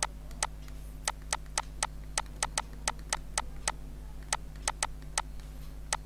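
Irregular sharp clicks, about three a second with a brief pause midway, from the input device as handwriting is drawn stroke by stroke on a computer. A steady low electrical hum underneath.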